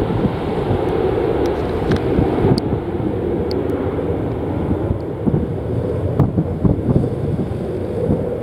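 Strong gusty wind buffeting the microphone, over the rumbling noise of a jet airliner's engines at the airport. A few faint ticks sound through it.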